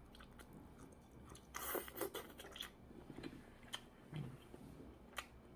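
Close-up chewing of air-fried ham: a louder run of bites about a second and a half in, followed by scattered small clicks.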